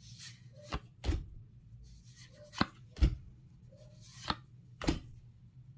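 Trading cards and their deck box handled on a table: six sharp taps, roughly in pairs, with light brushing and sliding between them.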